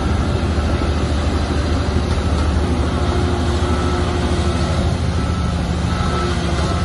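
Heavy diesel engine of earthmoving machinery running under steady load, with a few short, faint high beeps now and then.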